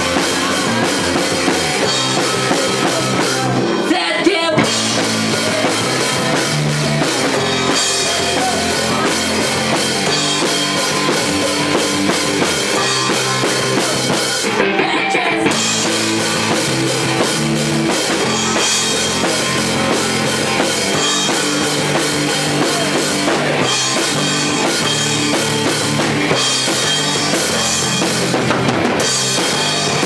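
Rock song played by a band on drum kit, electric bass and electric guitar, at a steady, loud level.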